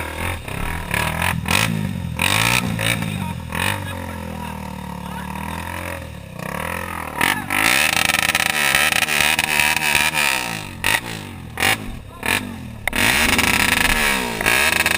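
Honda XLX 250's single-cylinder four-stroke engine revving up and down repeatedly as the motorcycle is ridden, louder from about seven seconds in.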